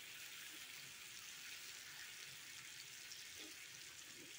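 Faint steady sizzle of masala-coated fish pieces shallow-frying in oil on a cast-iron tawa.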